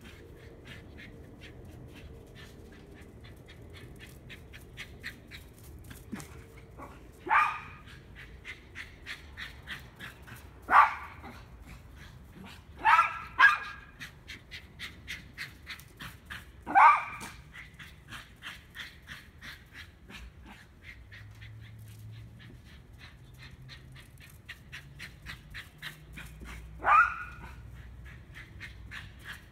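Miniature pinscher giving short, high yipping barks, six in all, spaced several seconds apart, with two in quick succession about halfway through. A faint rapid ticking runs underneath.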